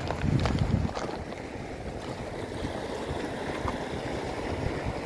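Wind rumbling on the microphone over small waves washing on a stony shore, with a few light clicks in the first second.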